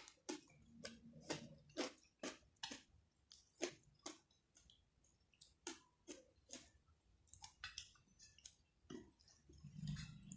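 Close-up eating sounds: chewing with sharp, irregular wet mouth clicks and smacks, about two a second. A short low hum comes near the end.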